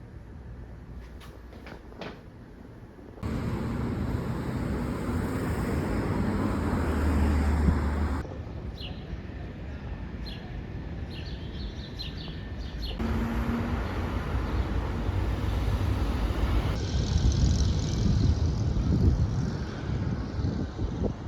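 City street ambience with a steady hum of traffic, changing abruptly several times as separate shots are cut together; birds chirp in one of the shots.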